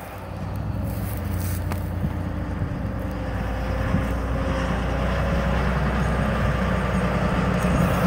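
John Deere combine harvester's engine running as the machine drives off across the field, a steady low hum that grows louder as it comes close and passes by.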